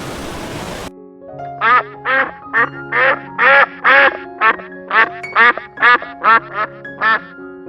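A duck quacking in a quick series of a dozen or more short, loud quacks, about two a second, over background music with held notes. Before the quacking starts, about a second in, a steady rushing noise cuts off abruptly.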